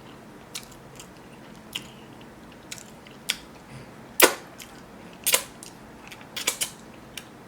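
Close-miked mouth sounds of someone eating sausage, rice and cucumber: irregular wet smacks and clicks of chewing, the loudest a little over four seconds in.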